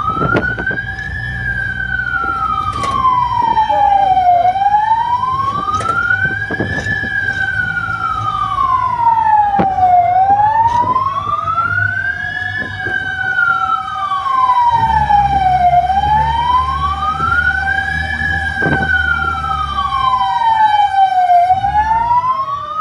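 Fire truck siren on a slow wail, rising and falling about four times, once every five to six seconds, with a steady lower tone held beneath it and a low engine rumble.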